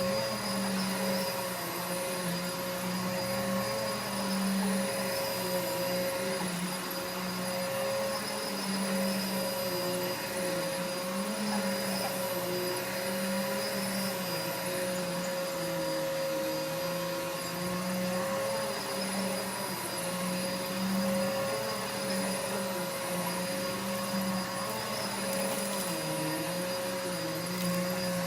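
Corded vacuum cleaner running continuously, a steady higher whine over a lower hum that wavers up and down in pitch.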